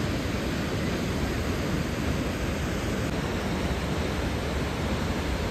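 Waterfall rushing: a steady, even roar of falling water with no breaks.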